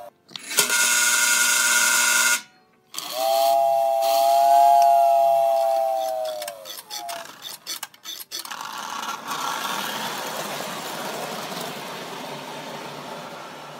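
American Flyer toy steam locomotive's whistle blown twice: a short hissy blast, then a longer two-tone blast that sags in pitch as it cuts off. A few clicks follow, then the steady hum and rattle of the model train running.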